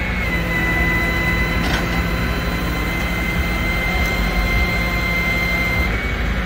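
Flatbed tow truck's engine running steadily with a low rumble and a constant high whine, which steps down slightly just after the start and cuts off near the end.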